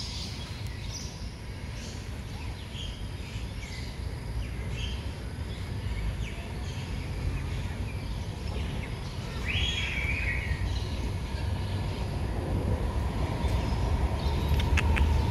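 Outdoor ambience: a steady low rumble with scattered bird chirps, and a louder, longer bird call about ten seconds in.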